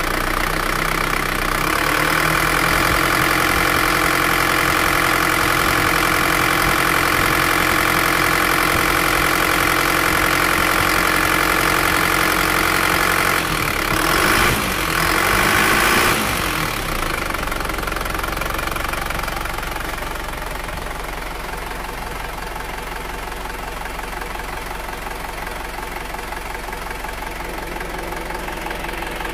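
Isuzu Panther's four-cylinder diesel engine idling cold with a steady diesel knock, just after a rebuild with new piston rings and seals. About halfway through its pitch and level rise briefly, then it settles to a slightly quieter, steady idle.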